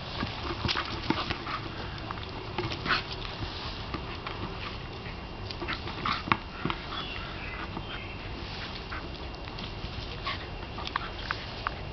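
Australian cattle dog sniffing and snuffling as it noses a rubber ball across the grass, with scattered short knocks and scuffs at irregular moments.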